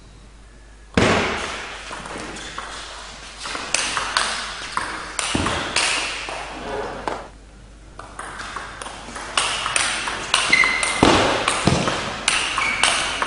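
Table tennis rallies: the ball clicks sharply off the rackets and the table in quick exchanges, echoing in a large hall. The hits start about a second in and come at a steady two or three a second near the end.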